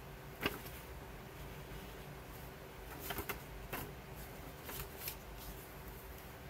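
Stiff paper leaflet being handled: a sharp snap about half a second in, then a few short crisp rustles and clicks as the folded card is opened out and folded back up.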